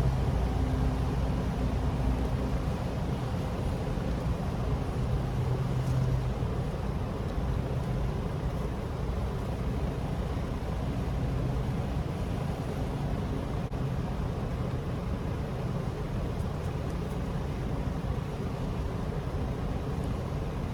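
Steady low mechanical rumble, with a low hum that fades out about six seconds in.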